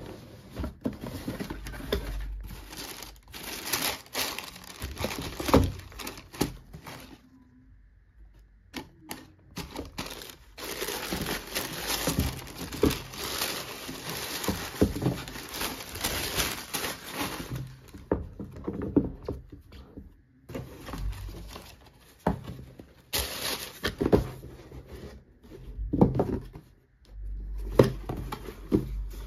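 White tissue paper crinkling and rustling as it is pulled back inside a cardboard shoebox, with a long stretch of steady crinkling through the middle. Scattered knocks and scrapes of the cardboard box and lid being handled and set down on the wooden table.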